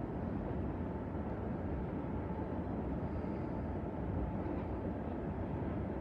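Freight train cars rolling past, a steady low rumble with no distinct clicks or horn.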